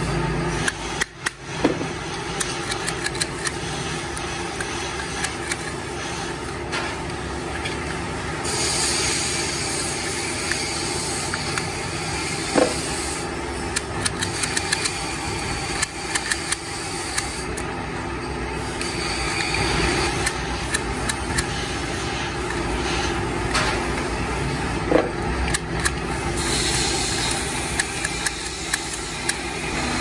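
A steady motor-like drone with many small metallic clicks and scrapes over it, from hand-tool work on a steel centre shutter lock case.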